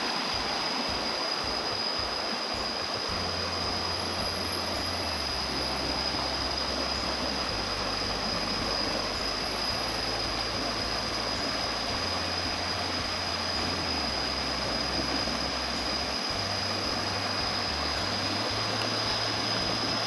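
Forest stream water running and splashing over boulders in small cascades, a steady rushing, with a thin high-pitched tone held throughout and a low rumble coming and going from a few seconds in.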